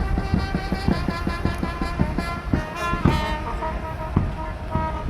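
Background music with drums and a held, pitched melody.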